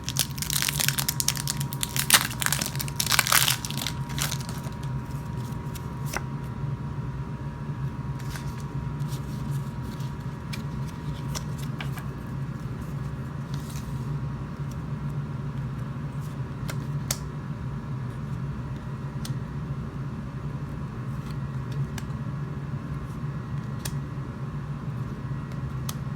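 A foil Pokémon booster pack wrapper being torn open and crinkled for the first few seconds, then occasional light clicks of cards being handled over a steady low hum.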